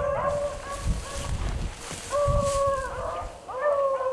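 Pack of beagles baying on a rabbit's track, a series of long, level bays.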